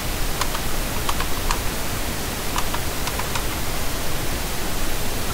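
Steady hiss of the recording with about eight light, sharp clicks from the computer's keys or mouse buttons, bunched in the first three and a half seconds, as the 3D view is switched.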